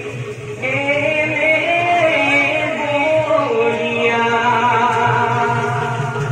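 Devotional singing from an Assamese bhaona stage play, sung in long held notes that slide between pitches, with music behind it, entering about half a second in.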